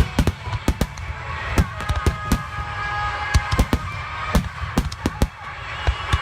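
Aerial fireworks shells bursting at close range: a rapid, irregular string of sharp bangs, several a second, with crackle between them.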